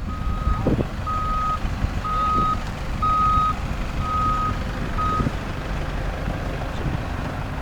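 Reversing alarm of a heavy machine beeping about once a second, a single steady tone, stopping about five seconds in, over a low engine rumble.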